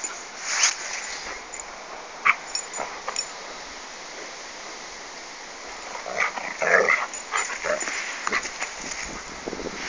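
A dog making short, scattered sounds, most of them packed together about six to seven seconds in.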